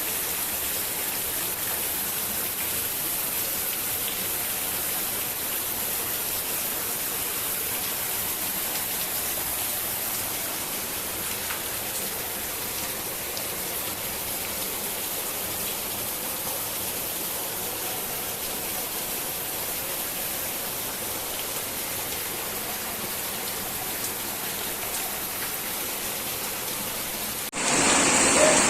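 Heavy rain falling in a steady, even hiss. About a second before the end the sound changes abruptly and gets louder.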